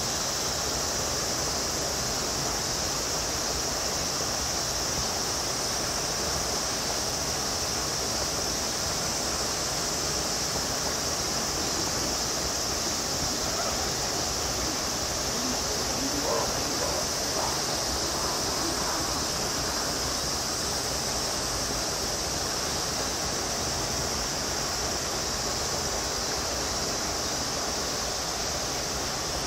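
Steady outdoor background noise with a continuous high-pitched hiss. Faint, brief calls or voices come through about halfway in.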